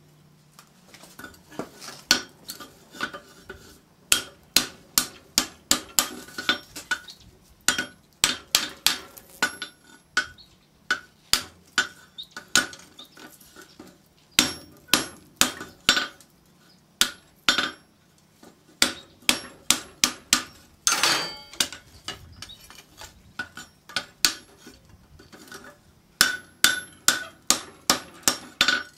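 Hand hammer striking a red-hot steel cone over the bick of an anvil, closing up the rolled plate into a frustum. Sharp metallic blows in runs of several, about two to three a second, with short pauses between runs.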